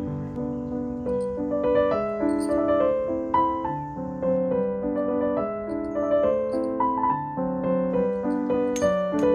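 Background music: a piano playing a melody of single notes over held chords.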